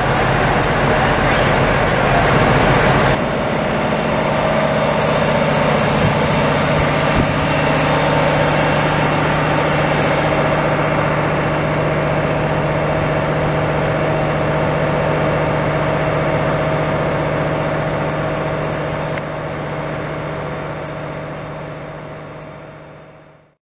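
Train engine idling with a steady hum, fading out near the end.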